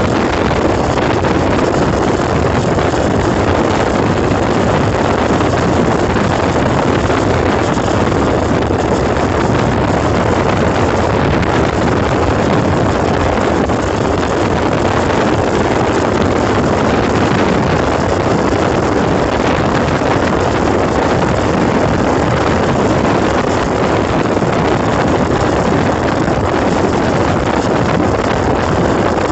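Motorboat running at speed: a steady mix of engine noise, water rushing along the hull and wind on the microphone.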